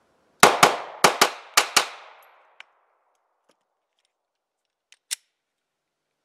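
Kahr CM9 9mm pistol fired in three double taps, six shots in all, the two shots of each pair about a fifth of a second apart, each report echoing briefly. A short sharp click comes about five seconds in.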